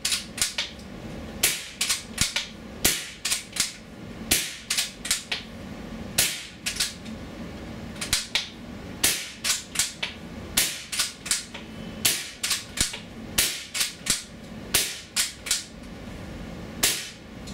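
QB78 Deluxe .22 air rifle, fed from an HPA tank through a remote hose, fired shot after shot in a rapid, uneven string of sharp pops and clicks. The tank valve is shut, so this is bleeding off the pressure left in the hose and gas tube before it is unplugged.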